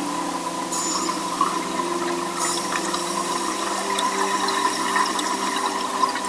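Rushing, bubbling water over a steady hum of a few held tones.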